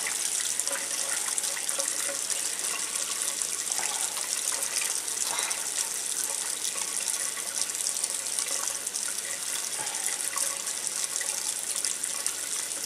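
Tap water running steadily over hands lathering a bar of soft cold-process soap.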